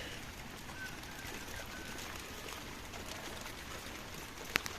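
Steady rain falling, an even hiss, with a couple of faint short chirps early on and a single sharp click near the end.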